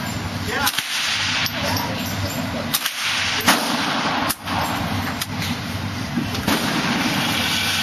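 About eight .22 rimfire rifle shots, sharp single cracks at uneven spacing with no steady rhythm, over a steady low hum.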